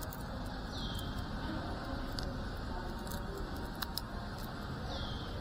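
Steady outdoor background rumble with a few faint clicks, and two short high chirps falling in pitch, one about a second in and one near the end.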